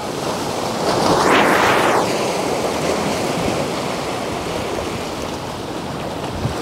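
Sea waves washing in; one wave surges up and subsides between about one and two seconds in.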